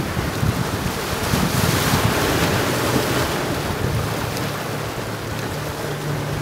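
Wind buffeting the microphone over the wash of small waves on open sea water. The hiss of the water swells about two seconds in and then eases.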